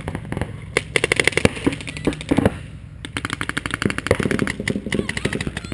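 Paintball markers firing rapid strings of shots, in two long bursts: one from about a second in, the other from about three seconds in.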